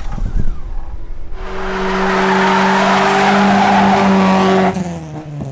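A car doing a burnout: tyres spinning and squealing while the engine holds steady high revs for about three seconds, then cutting off abruptly.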